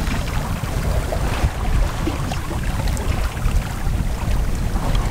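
Wind buffeting the microphone over the rushing wash of water in a sailboat's wake at sea.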